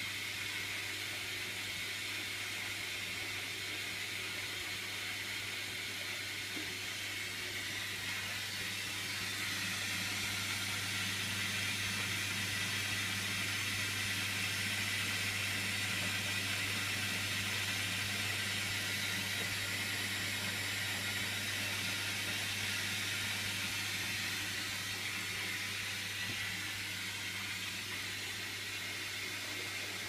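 Hotpoint front-loading washing machine running with its drum turning: a steady motor hum with a hiss over it, swelling somewhat louder from about nine seconds in and easing back a few seconds before the end.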